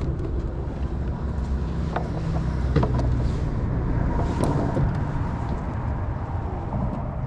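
An engine's steady low rumble, with a few light clicks and taps over it.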